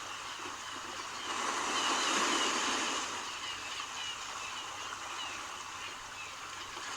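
Sea waves washing on the shore, a steady hiss of surf that swells louder about two seconds in and then eases back.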